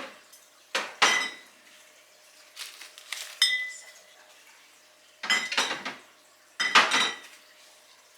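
Dishes and food containers clinking and clattering as they are set down and moved around on fridge shelves, in four bursts, some with a brief ringing clink.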